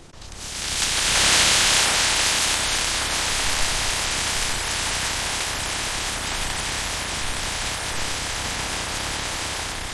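A loud, steady hiss of spray or rushing air that swells in over the first second or so, holds with faint ticks through it, and cuts off suddenly at the end.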